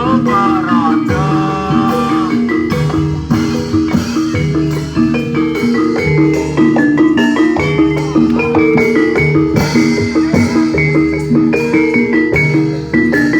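Gamelan-style Barongan accompaniment: mallet-struck metallophones play a repeating melodic figure over a steady low beat.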